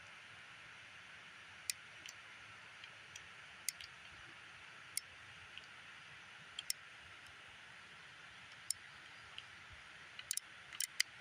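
Faint, irregular metallic clicks, a cluster of them near the end, from a Heritage Rough Rider single-action .22 revolver being loaded: cartridges going into the cylinder as it is turned through the loading gate. A faint steady hiss runs underneath.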